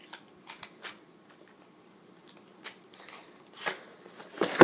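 Scattered light clicks and rattles of pistol cartridges being handled from a box of ammunition, with a louder clack near the end.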